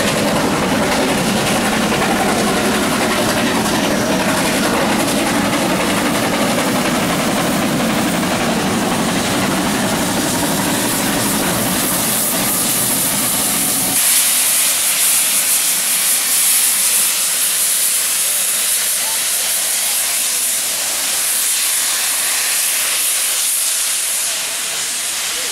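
Western Maryland Shay geared steam locomotive working close by, a dense rush of running noise and escaping steam. About halfway through the low rumble cuts off suddenly, leaving a loud, high steam hiss.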